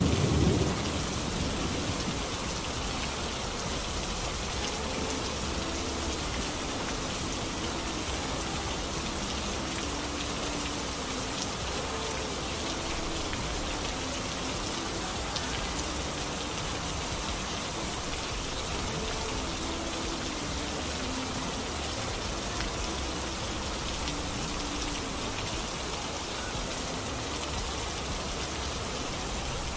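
Steady rain, a recorded rain track, with a louder burst in the first half second and faint, scattered low notes beneath it.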